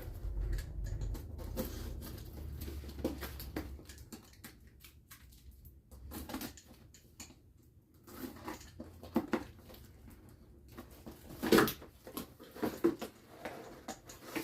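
Plastic wrapping being handled and pulled off a trim router: scattered rustles with light clicks and knocks, the sharpest knock about eleven and a half seconds in. A low hum runs under the first few seconds.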